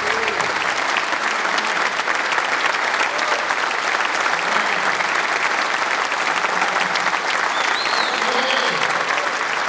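Audience applauding steadily, a dense patter of many hands clapping, with a few voices calling out in it near the end.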